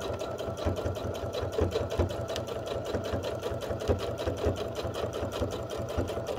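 Bernette sewing machine stitching free-motion around an appliqué outline on a quilt, a rapid, even run of needle strokes that stops abruptly at the end.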